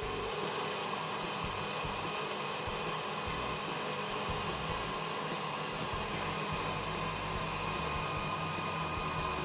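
Tilt-head stand mixer running fast and steadily, its wire whisk beating cold cream into whipped cream in a steel bowl; an even motor whine.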